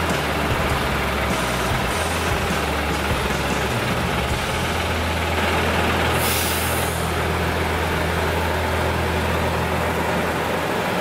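UD Trucks Quon diesel tractor idling with a steady low rumble, with a short hiss of released air from its air system about six seconds in.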